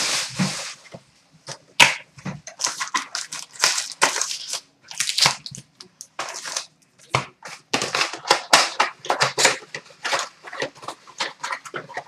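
Wrapped trading-card packs rustling and crinkling as they are lifted out of a cardboard hobby box and set down in stacks on a glass counter, with a few sharp knocks.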